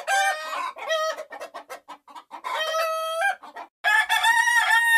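Rooster clucking in a run of short calls, with one longer held call midway, then crowing from about four seconds in.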